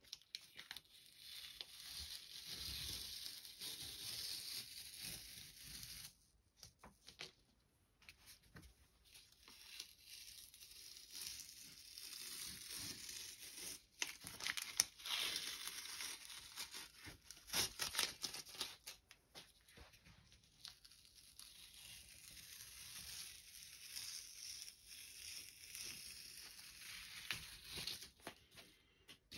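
Masking tape being peeled off the paper around a finished watercolour painting: a faint ripping hiss in several long pulls, with small crackles as the tape comes away and crinkles.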